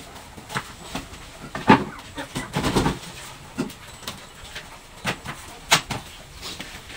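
Flattened cardboard being handled and pressed down on a concrete floor: irregular scrapes, rustles and light taps, with a busier run of scuffing about two to three seconds in.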